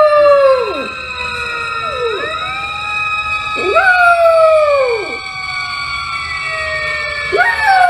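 Bernese mountain dog puppy howling: a series of long howls, each rising quickly and then sliding slowly down in pitch.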